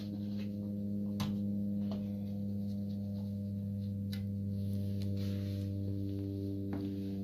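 A metal ladle clinks and scrapes about five times against the kettle and a metal loaf pan as thick scrapple mush is dipped out. Under it runs a steady low hum.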